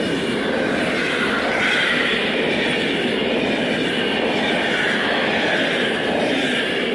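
PKP Intercity passenger coaches passing at speed close by: a steady rolling rush of wheels on rail.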